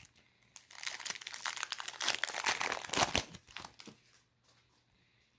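Foil wrapper of a Panini Prizm Draft Picks baseball card pack crinkling and tearing as it is ripped open, a dense crackle lasting about three seconds.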